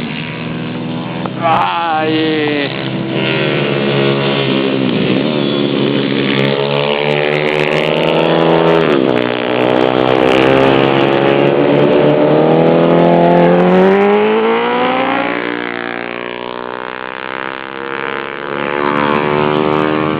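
Pit bike single-cylinder four-stroke engines (YX 140 and 150 cc) revving hard through the gears, the pitch climbing and dropping with each shift. The sound swells to its loudest about two-thirds of the way in, then fades as the bikes pull away.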